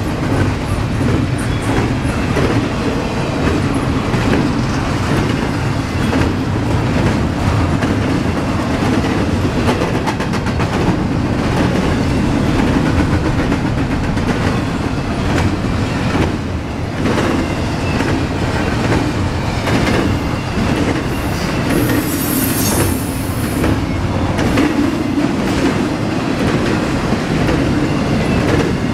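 Double-stack intermodal freight train rolling past at close range: a steady rumble of wheels on rail with repeated clicking over the rail joints, and a brief high squeal about three quarters of the way through.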